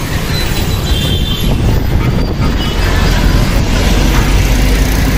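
Street traffic noise: a steady, loud rumble of passing motor vehicles.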